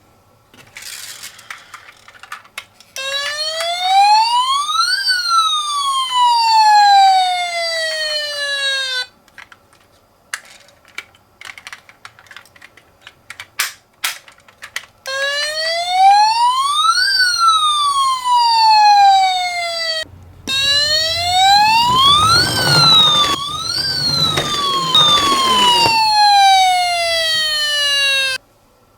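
A toy ambulance's electronic siren wailing, sweeping slowly up and down in pitch, in three runs several seconds long with gaps between them. Scattered clicks and rattles fill the gaps, and a rattling rumble sounds under the last run.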